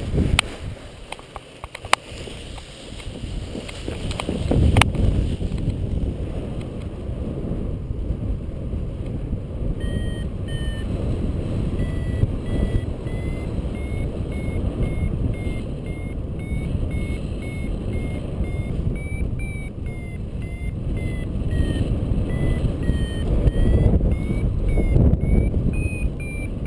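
Paragliding variometer beeping in short repeated tones from about ten seconds in, the pitch stepping up and down with the climb rate as the glider climbs in lift, over loud wind rushing across the microphone in flight. A few sharp clicks sound during the launch.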